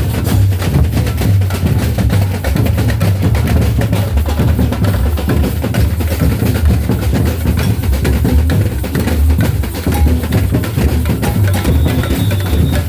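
Drum-led percussion music with a fast, dense beat over a heavy bass drum.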